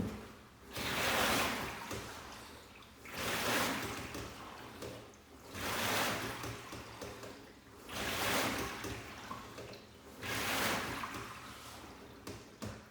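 WaterRower rowing machine's water flywheel tank swishing and churning in five strokes, about one every two and a half seconds, each surge rising and fading.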